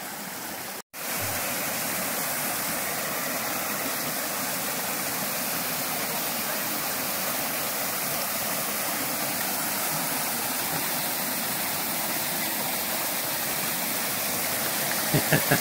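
Small mountain brook splashing over rocks and little cascades: a steady rushing of water. It cuts out for an instant about a second in, then carries on slightly louder.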